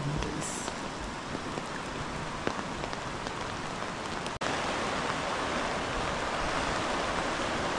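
Steady rushing of river rapids running over rocks, mixed with rain. The sound drops out for an instant about four and a half seconds in, then comes back a little louder.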